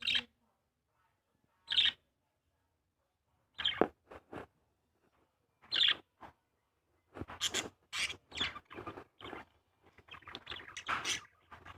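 Birds calling in short, sharp chirps and squawks: a few scattered calls at first, then a quick run of calls through the second half.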